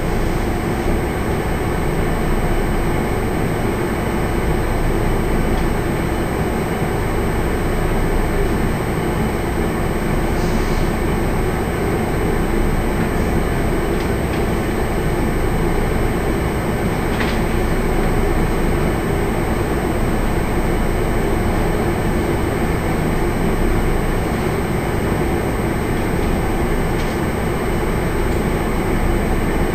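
Steady low rumble and hum of a ship's engines and machinery, heard from inside the vessel behind glass.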